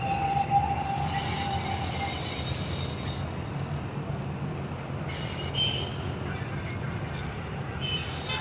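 Passenger train rolling slowly through a station yard: a steady low rumble of coaches on the rails, with high-pitched wheel squeals that come and go, first in the opening seconds, again a little past the middle and near the end.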